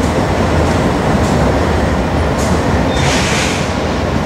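Freight train passing close by: a steady heavy rumble of wheels on rail, with a brief hiss about three seconds in.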